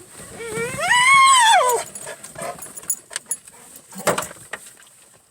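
Dog giving one long whining cry that rises and then falls in pitch, followed by a couple of short knocks.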